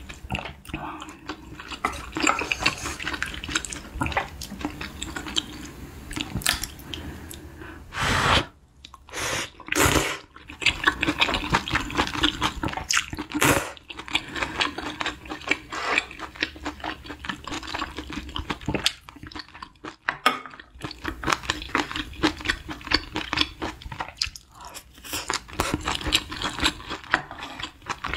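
Wet eating sounds: glass noodles from a spicy beef-intestine hotpot being slurped and soft, chewy tripe chewed, with a few louder bursts partway through.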